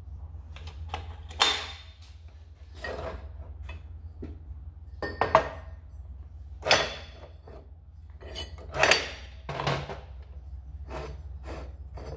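Steel pipe clanking and knocking against a metal chop saw's vise and table as it is set in place and clamped: about six sharp metallic knocks with short ringing, among lighter clicks, over a steady low hum.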